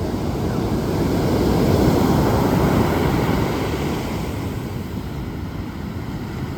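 Ocean surf washing onto the shore, a steady rush of waves that swells about two seconds in and then eases off.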